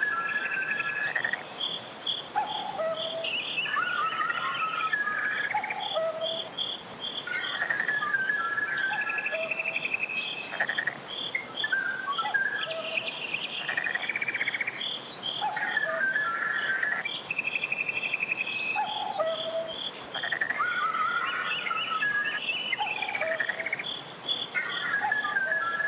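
Mountain stream water rushing steadily, with birds chirping repeatedly over it.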